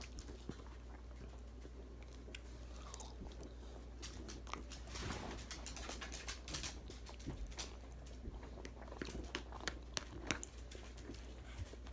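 Faint chewing close to the microphone: a person eating a bite of cheesecake, with scattered small wet mouth clicks.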